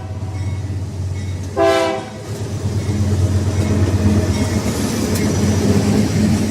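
Railroad cars rolling on the rails with a steady low rumble, broken about one and a half seconds in by a short, loud horn blast lasting under half a second.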